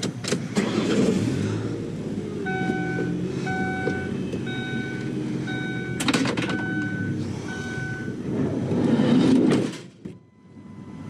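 Minivan power sliding door closing, with its warning chime beeping about six times, roughly once a second, and latch clicks partway through. The outside sound cuts off sharply as the door shuts near the end.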